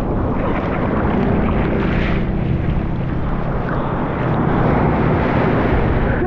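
Whitewater rushing around a surfboard and wind buffeting the GoPro microphone as the board moves through broken surf: a loud, steady churning noise with most of its weight low.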